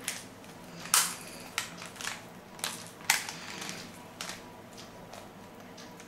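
Plastic Rubik's cube layers being turned by hand: a run of uneven clicks and clacks, the loudest about a second in and about three seconds in, dying down in the last second or two.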